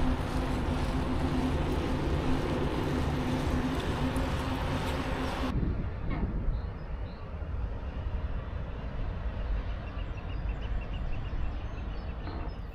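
Wind rushing over the microphone and road noise with a steady hum while riding a loaded touring bicycle along a paved cycle path. About five seconds in it cuts off suddenly to a quieter outdoor ambience with a low rumble and a few faint chirps.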